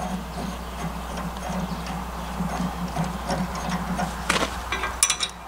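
Steel safety chain and turnbuckle being handled and loosened by hand: light metallic clinks and scrapes, with a couple of sharper clinks near the end, over a steady low hum.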